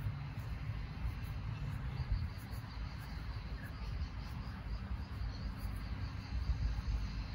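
Insects chirping in a fast, even pulse over a steady low rumble.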